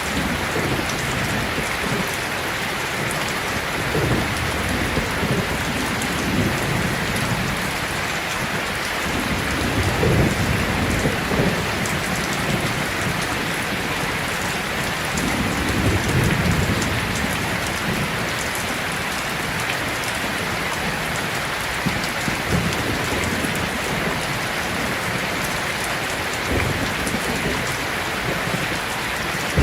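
Heavy rain falling steadily, with low rolls of thunder rumbling several times, strongest about ten and sixteen seconds in.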